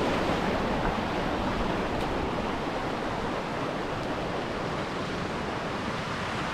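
Steady rushing of water from a waterfall, growing slowly a little quieter.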